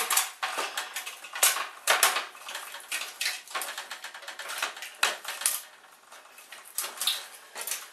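Plastic parts of an inkjet printer clicking, rattling and knocking as they are worked loose by hand, in irregular sharp clicks with a few louder knocks.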